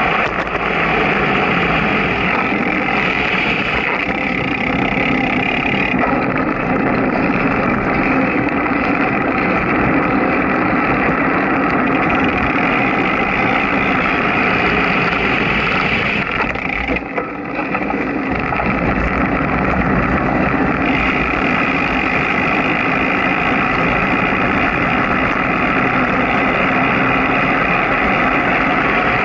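Steady running noise of a moving vehicle: engine, road and wind, with a brief dip in level a little over halfway through.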